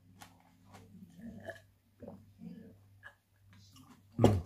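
A man sipping juice from a glass: quiet sips, swallows and soft breathing over a low steady hum, then a brief louder sound near the end.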